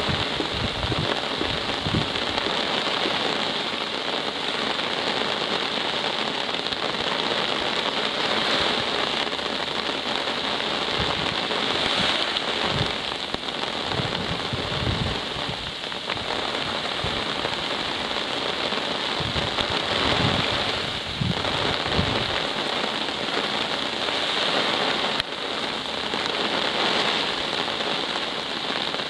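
Steady rain falling, an even hiss of drops on the surface, with occasional low gusts of wind buffeting the microphone.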